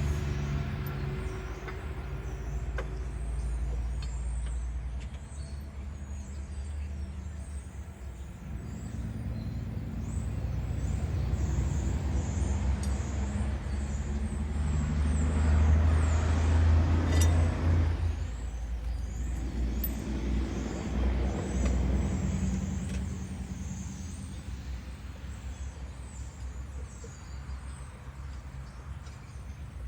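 An engine running steadily with a low hum, growing louder to a peak about halfway through, then fading off again.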